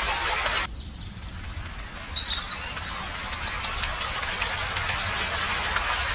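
Steady hiss of rain cuts off suddenly, and a small bird gives a quick run of high chirps. The rain hiss then comes back in.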